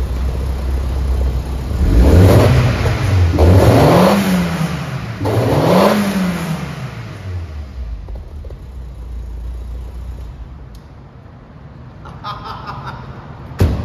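1995 Alfa Romeo 155's 1.8 Twin Spark eight-valve four-cylinder engine, heard from behind at the exhaust. It idles, is revved three times in quick succession starting about two seconds in, each rev rising and falling, and then settles back to a quieter idle. A single sharp knock near the end.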